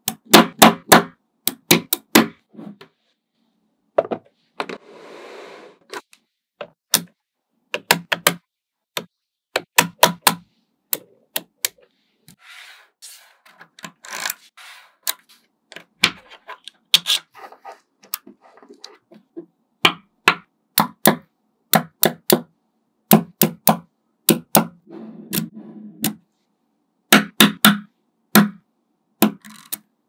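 Small magnetic balls clicking and snapping together in quick clusters of sharp clicks as strips and panels of them are joined and pulled apart by hand.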